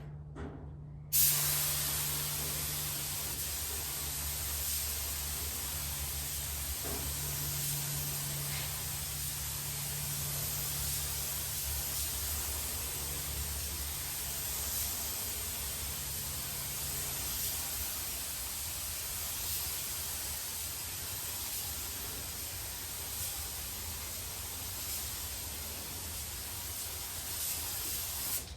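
Compressed-air paint spray gun spraying clear coat: a steady hiss that starts abruptly about a second in and runs on unbroken. A low hum sits underneath for roughly the first half.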